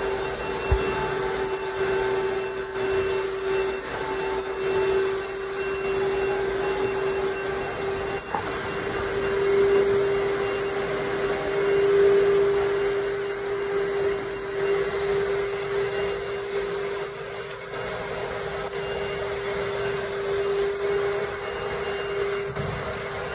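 Pressure washer running, a steady whine over the hiss of the water spray, swelling about halfway through and easing off after that.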